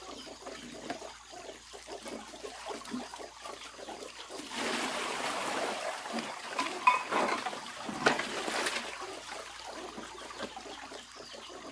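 Water from a hose running into a full plastic basin and trickling over, with splashing as hands wash in it. The water gets louder from about four and a half to six seconds in and again near eight seconds, with a few sharp splashes around seven seconds in.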